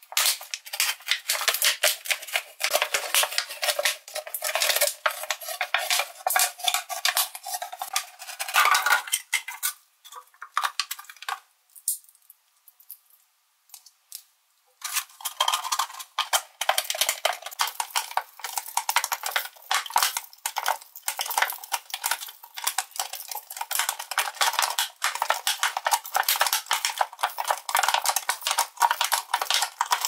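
Thin plastic drink bottle crinkling and crackling as it is squeezed and cut into with a Swiss Army knife blade, with many small clicks. It stops for a few seconds about a third of the way in, then goes on.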